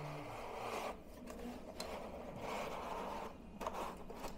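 Inventer IV14-Zero ventilator fan being pulled out of its foam-lined wall tube while still running: a faint whir with soft plastic scraping and rubbing.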